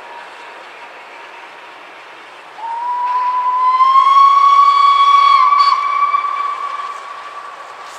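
Steam locomotive whistle: one long blast on a single pitch that starts about two and a half seconds in, slides up slightly as it opens, and fades out near the end. A steady hiss lies under it.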